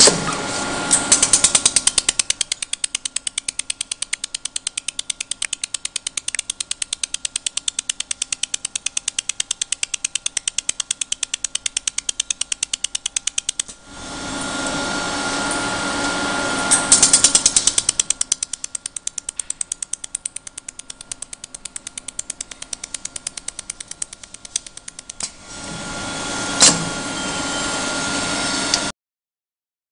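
A KYW series pulsed laser welding machine firing a rapid, even train of sharp ticks, one per laser pulse, as it spot-welds the seam of a metal mesh cone. It fires in two long runs. Between the runs the machine gives a steady hum with a thin whine.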